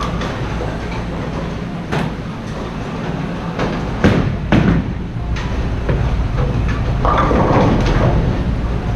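Bowling alley: a steady rumble of bowling balls rolling down the lanes, with sharp knocks about two and four seconds in and a longer clatter of pins near the end.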